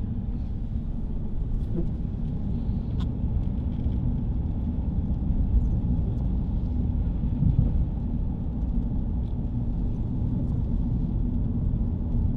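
Steady low rumble of a car driving along a road, engine and tyre noise heard from inside the cabin.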